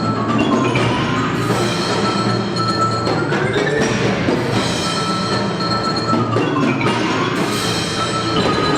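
Children's percussion ensemble playing, with pitched mallet instruments ringing over struck percussion in a continuous passage.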